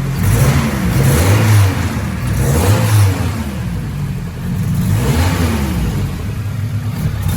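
Honda B16A four-cylinder engine revved up and let fall back several times, running after its timing belt and cam timing were reset.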